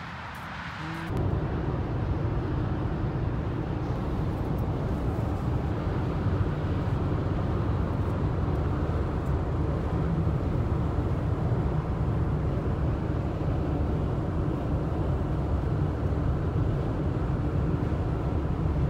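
Steady road and wind noise of a car driving at highway speed, heard from inside the cabin. It comes up sharply about a second in, then holds even.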